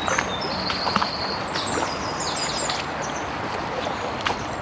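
Shallow stream running over stones, with songbirds singing runs of short high notes, busiest about a second and a half in.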